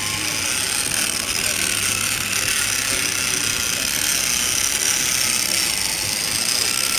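Electric drive motor and gearbox of a radio-controlled trial truck running as it crawls through shallow water over rocks, with a faint rising and falling whine over a steady hiss.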